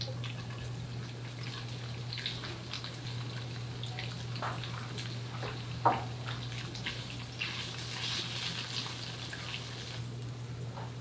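Cornstarch-coated tofu pieces frying in a nonstick pan: light sizzling and crackling, with the spatula knocking and scraping against the pan a few times, one sharper knock near the middle, over a steady low hum.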